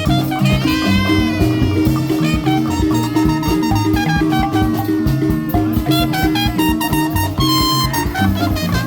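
Upbeat Latin-style music with a steady beat, a bass line and brass-like melody.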